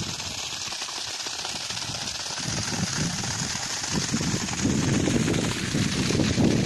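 Water gushing from the outlet pipe of a 3 HP solar pump and splashing onto the ground, a steady rushing that grows louder from about halfway through.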